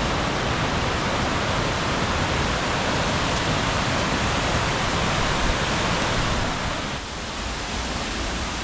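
Creek water rushing over falls: a steady, even wash of noise that eases slightly about seven seconds in.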